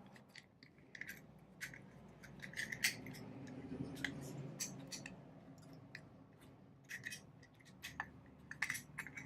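Faint, scattered clicks and small metallic clinks from the parts of a cut-open disc padlock being handled and turned over.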